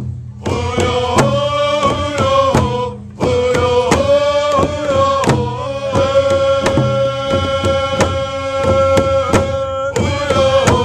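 Group of singers chanting a Port Gamble S'Klallam song in unison over a steady, even beat of rawhide hand drums struck together. The voices break off briefly about three seconds in, then come back and hold long notes over the drumming.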